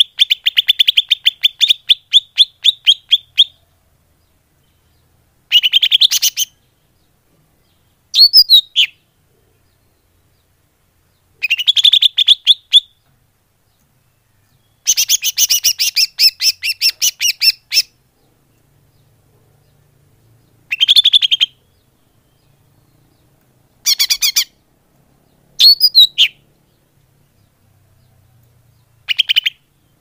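Green leafbird (cucak ijo) lure call: bursts of rapid, repeated chattering notes, from under a second to a few seconds long, with silent gaps between them. Twice there is a short whistle that rises and falls.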